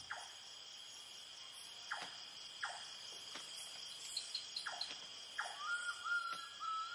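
Night insect chorus of crickets: a steady high-pitched trilling, with a few short chirps and, near the end, a wavering whistled call.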